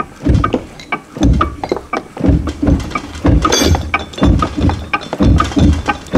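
Ring and pinion gears of a Chrysler 8¾-inch rear-end third member being rolled back and forth by hand through gear-marking compound to read the tooth contact pattern. Gear teeth click and clunk against each other, with about ten dull knocks at roughly two a second among lighter clicks.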